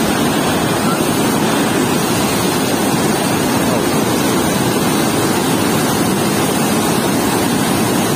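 Water rushing out of a weir's sluice gate, a loud, steady churn of white water with no break.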